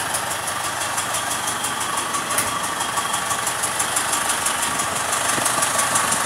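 Diesel pickup engine with a Bosch VE rotary injection pump idling steadily, with a rapid, even clatter.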